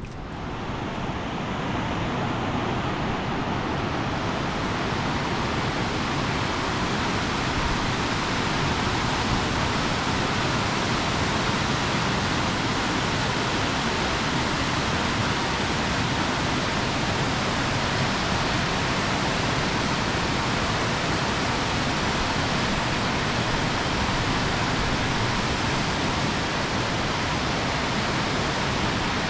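Muddy river in flood rushing over rocks, a dense steady rush of water that swells in over the first couple of seconds.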